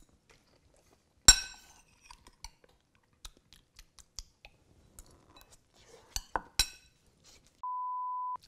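A fork clinking against a ceramic bowl, sharply about a second in and again near the end, with faint chewing and small clicks between. Near the end comes a short, steady one-tone electronic bleep.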